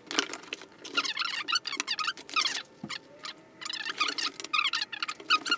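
Cardboard camera box and its packaging being opened and handled: scattered rustling and clicks, with squeaky rubbing of cardboard and packing material as the contents are pulled out.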